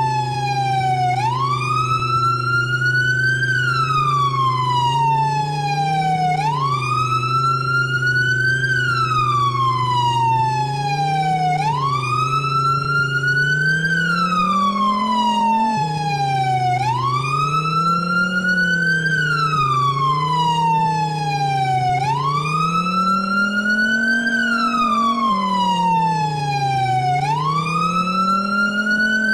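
Emergency vehicle siren in a slow wail, its pitch climbing and falling back about every five seconds, over a low, wavering hum.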